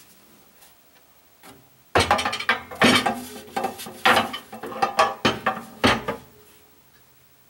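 A wooden cutting board pushed into a crowded cabinet rack, knocking and scraping against the platters and other boards in a run of clattering knocks. It starts about two seconds in and stops abruptly about four seconds later.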